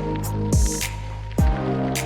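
Electronic background music: deep kick drums that fall in pitch and sharp high hits over sustained synth tones.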